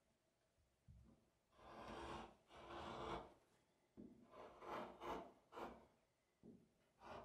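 A knife blade drawn through leather along a paper pattern: about nine short cutting strokes, the two longest around two and three seconds in.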